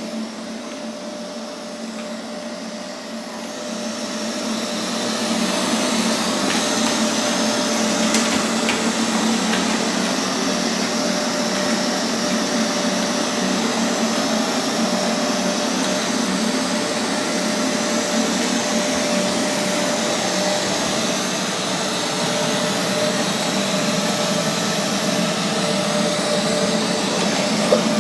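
Neato XV21 robotic vacuum running, a steady whir of its suction motor and rotating brush with a low hum. It grows louder a few seconds in, then holds steady.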